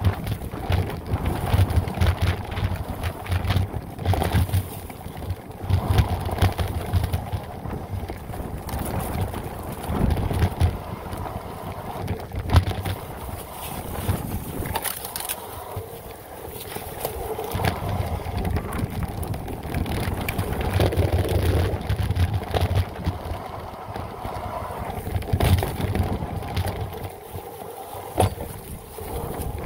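Specialized Turbo Levo electric mountain bike riding over a dry, grassy dirt trail: tyres crunching over dirt and dry grass, with scattered rattles and knocks from the bike. Gusts of wind buffet the microphone throughout.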